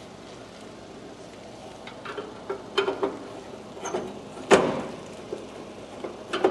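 Metal clanks and clicks of tools and loose car body parts being handled during sheet-metal teardown: a few short knocks with a slight ring, the loudest clank about four and a half seconds in, after a couple of quieter seconds.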